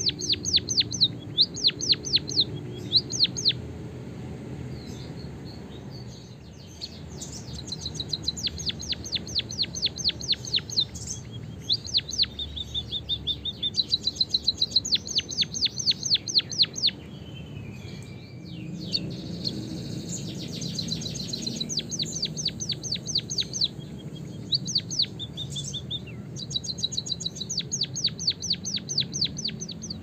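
White-headed munia singing: fast trains of high, thin chirps, several notes a second, in bouts of two to four seconds broken by short pauses. A lower sliding note comes a little past the middle.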